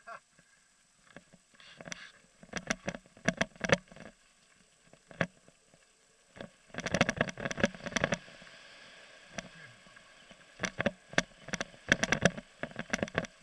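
Downhill mountain bike clattering over a rough dirt trail: irregular clusters of sharp knocks and rattles from the bike, heard through a helmet-mounted camera, with short quiet spells between. From about seven seconds in the knocks come thick and fast over a rushing hiss, and pick up again near the end.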